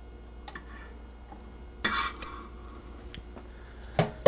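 Spatula scraping and metal clinking against a stainless steel mixer bowl and the flat beater of a KitchenAid stand mixer as the beater is taken off, with a louder clatter about two seconds in and a sharp click near the end.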